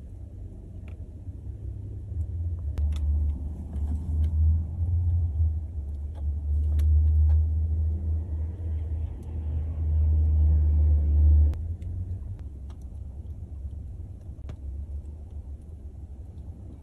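Low rumble that swells about two seconds in and drops off suddenly near the twelve-second mark, with scattered faint clicks.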